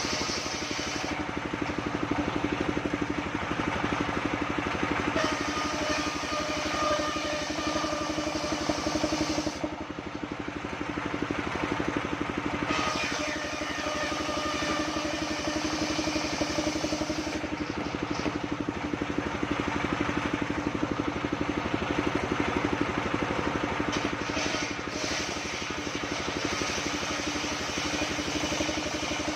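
Band sawmill running steadily under engine power while sawing sengon (albasia) wood, with a constant engine hum. The higher cutting noise swells and drops back several times as the blade works through the wood.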